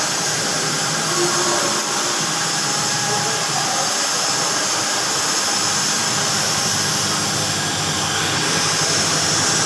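Submerged arc welding machine running: a steady whir and hiss that holds level throughout.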